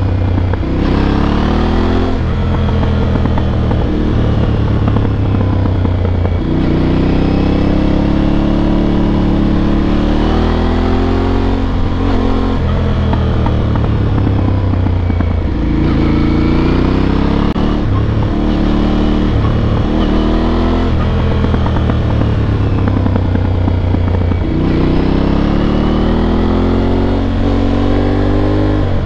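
Aprilia Tuareg 660's parallel-twin engine under way, rising in pitch in four long pulls and dropping back between them as the bike accelerates and the rider shifts or eases off.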